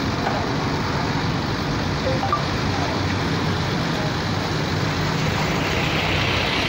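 Steady low hum of a heavy truck engine idling, over a haze of street noise.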